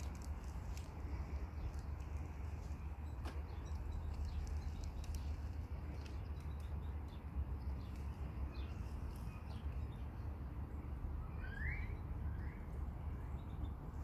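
Outdoor ambience: a steady low rumble with faint hiss, and near the end a short rising bird chirp followed by a fainter second one.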